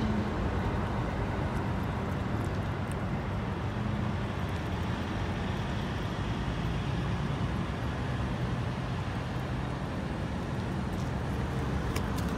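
Steady rumble of road traffic and running vehicle engines, with a low engine hum.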